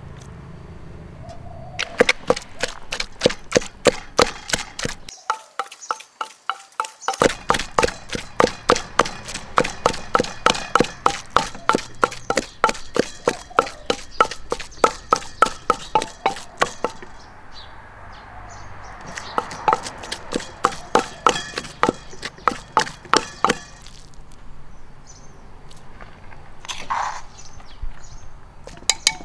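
Knife chopping on a wooden board in rapid, even strokes, about four a second, in runs broken by short pauses.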